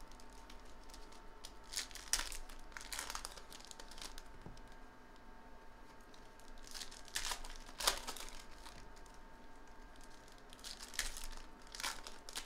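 Foil trading-card pack wrappers (2017 Donruss baseball packs) torn open and crinkled by hand, in a few short bursts of tearing with quieter rustling between.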